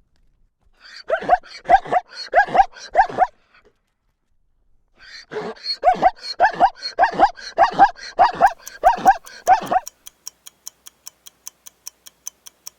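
Zebra calling: two runs of short, rapid, barking yelps, each a falling note, about six in the first run and about ten in the second. Near the end, a fast, even ticking takes over.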